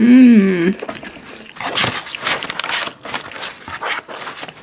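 A short, loud voiced sound lasting under a second, its pitch rising then falling, followed from about a second and a half in by close-up chewing and crunching of fries.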